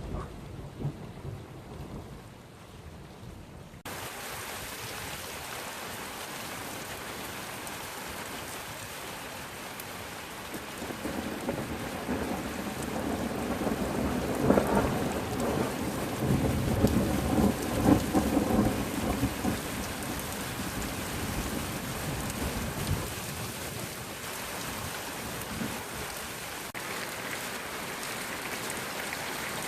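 Thunderstorm: a faint low rumble, then a steady hiss of heavy rain comes in abruptly a few seconds in. Through the middle, a long roll of thunder swells and rumbles with two louder peaks, then fades back under the rain.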